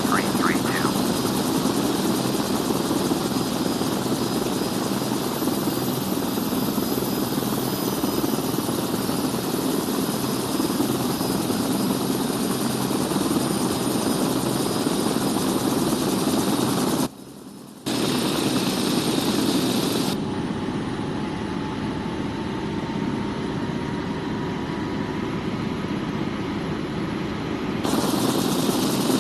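AgustaWestland helicopter running steadily, its rotor noise carrying thin high steady whines from the turbine engines. The sound drops out for about a second partway through and changes character for several seconds after, then returns.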